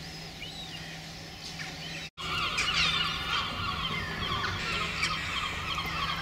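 Gulls calling: a few scattered calls over a faint steady hum. After a cut about two seconds in, a louder, dense chorus of many overlapping calls.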